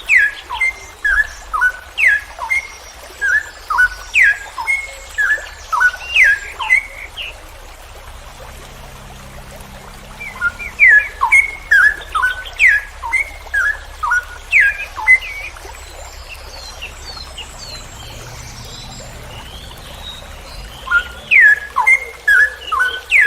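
Straw-headed bulbul (cucak rowo) singing its long rolling song: runs of loud, sharp whistled notes at about three a second, in three bouts separated by short pauses.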